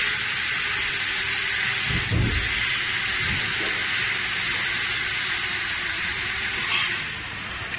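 A steady hiss that fades out about seven seconds in, with a couple of soft low knocks in the first half.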